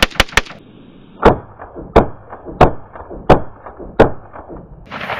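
Century Arms C39 AK pistol in 7.62x39mm firing semi-automatic: a quick string of about four shots right at the start, then five single shots at an even pace, about one every 0.7 s.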